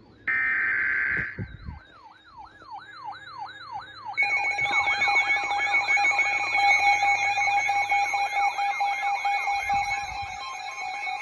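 The tail of an emergency-alert SAME data burst, a short raspy digital screech, is followed by weather radio alarms going off for a blizzard warning. First comes a fast warbling siren tone, about three to four sweeps a second, and about four seconds in a louder second alarm of steady beeping tones joins it.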